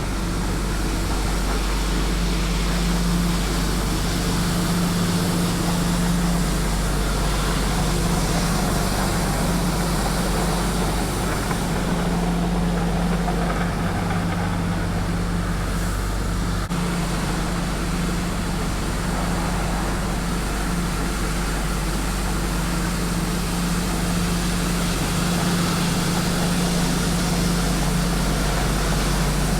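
Tymco 435 regenerative-air street sweeper running steadily while sweeping: a constant low engine hum under a steady hiss.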